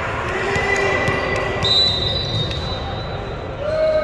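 Volleyball game: players and spectators talking and calling out, with thuds of the ball being played.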